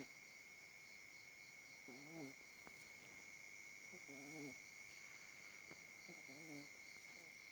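Sleeping puppy snoring softly, three short wavering snores about two seconds apart.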